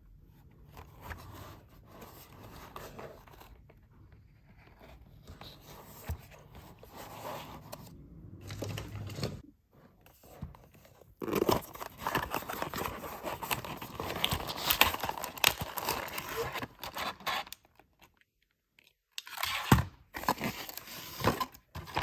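Toy packaging being handled, then torn open and crinkled by hand: soft rustling at first, louder tearing and crinkling from about halfway, a short pause, then one more burst near the end.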